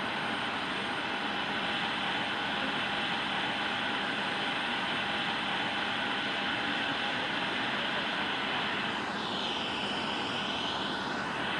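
Jet airliner engines at taxi power: a steady rush with a faint whine. Near the end a sweeping, swirling tone comes over it as the nearby taxiing jet moves past.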